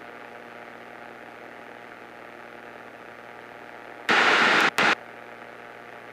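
Light airplane's engine heard through the cockpit headset intercom as a steady hiss with a faint hum. About four seconds in, a loud burst of radio static lasts about half a second, with a second short one just after.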